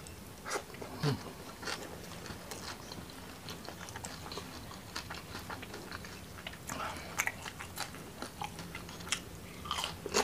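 Close-up eating sounds of a person chewing a handful of rice with fried fish and chili sambal: irregular wet clicks and lip smacks scattered throughout.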